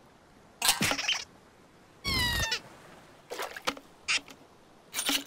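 Cartoon sound effects and short wordless character vocal noises: several brief separate bursts with quiet between them, and one squeak-like call falling slightly in pitch about two seconds in.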